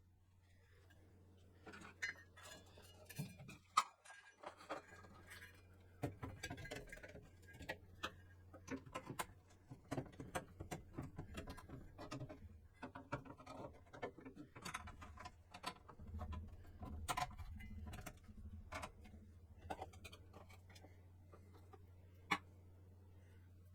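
Irregular small clicks, taps and knocks of parts and screws being handled during work on the computer, over a steady low hum.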